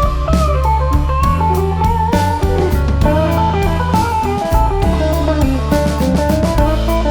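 Background music: a guitar melody over bass and drums with a steady beat.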